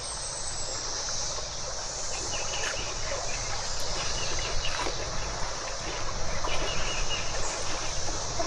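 Steady creek ambience: a continuous high insect buzz over the even rush of running water.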